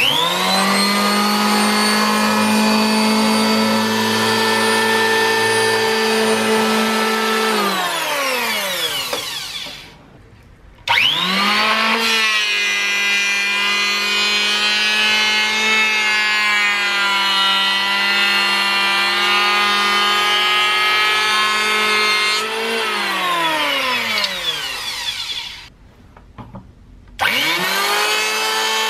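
Makita 1901 electric hand planer's motor and cutter drum spinning up quickly, running at speed with a high whine, then winding down with a falling pitch. This happens twice, the second run with its pitch wavering slightly as it planes a wooden board. Near the end it is running at speed again.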